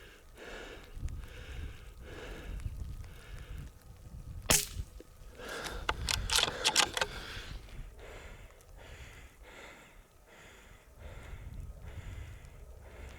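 A single shot from a CZ 455 .22 rimfire rifle, a sharp crack about four and a half seconds in, among heavy panting breaths and wind buffeting the microphone. The shooter found the shot oddly quiet and wonders whether the cartridges were cold. A cluster of sharp clattering sounds follows over the next two seconds.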